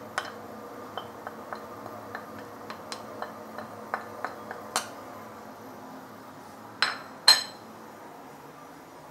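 Chopsticks tapping and clinking against a glazed ceramic bowl as minced garlic and spring onion are scraped out into a wok: a string of light, irregular clicks, with two louder knocks about seven seconds in.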